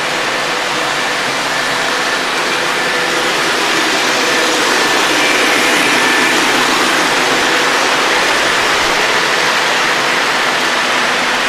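MTH Premier O-gauge model freight train running on its track: a steady whirring rumble of wheels and motors, swelling a little in the middle as it passes closest.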